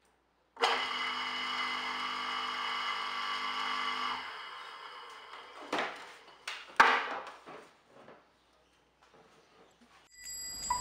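Restored single-phase capacitor electric motor switched on, starting at once and running with a steady hum and whine for about three and a half seconds, then switched off and coasting down. A few knocks and one sharp click follow as the plug is pulled and the cord set down.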